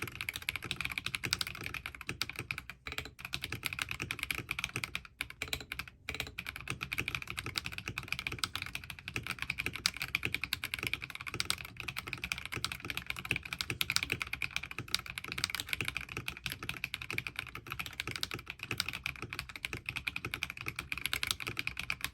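Fast, continuous typing on a mechanical keyboard fitted with NicePBT Peaches n Cream Lite PBT keycaps over linear switches: a dense stream of key clicks with a few brief pauses in the first six seconds.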